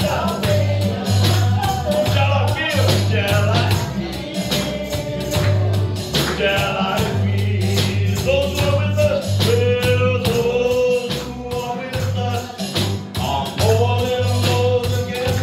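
Live worship song: a man singing into a microphone while playing acoustic guitar, backed by drums with a steady beat and sustained low bass notes.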